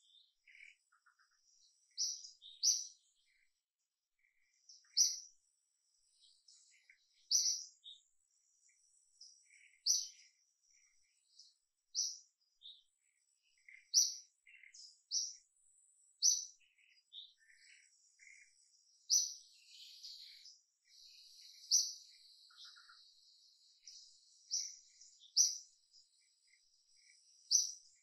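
Birds chirping in the tree canopy: one short, high call repeats about every two to three seconds, with fainter chirps from other birds between, and a high hiss of insects joins briefly about two-thirds of the way through.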